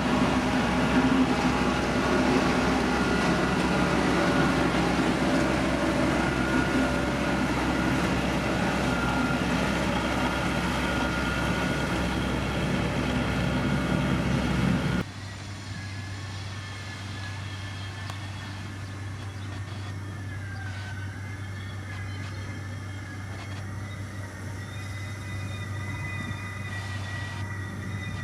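Heavy diesel road-construction machinery running steadily. About halfway through, the sound cuts abruptly to a quieter machine with a steady low hum and a faint wavering high whine.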